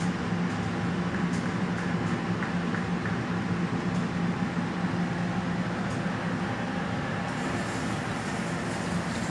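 Industrial washing machine running with a steady low hum and a few faint clicks; a higher hiss joins about seven seconds in.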